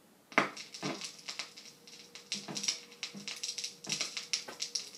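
Turntable stylus set down on a vinyl LP: a sharp click as it lands about a third of a second in, then irregular crackle and pops from the run-in groove, with a faint steady tone underneath, on a vintage Siera (Philips) portable record player.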